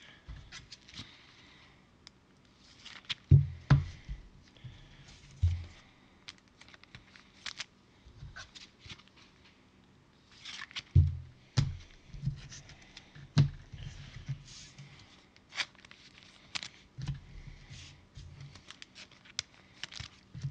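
Off-camera handling noise: scattered light clicks, brief rustles and scrapes, and a few soft low thumps, with quiet gaps between them.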